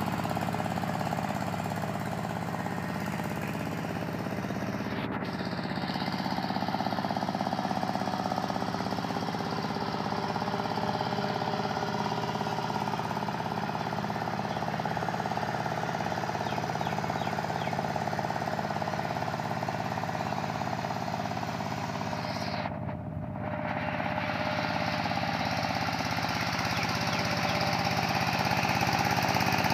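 Single-cylinder diesel engine of a two-wheel walking tractor chugging steadily under load as it pulls through a flooded rice paddy, growing louder near the end.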